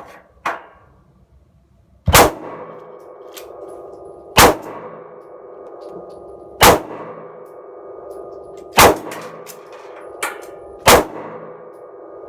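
Five loud metallic clangs about two seconds apart, each ringing on after the strike.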